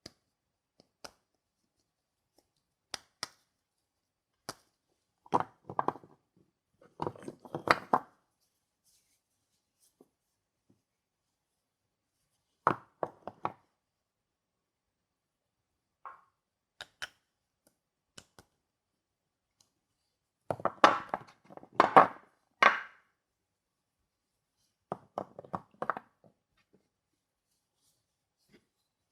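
Soap bars being unpacked by hand: scattered taps and short bursts of rustling packaging, with quiet gaps between. The busiest handling comes about five to eight seconds in and again about twenty to twenty-three seconds in.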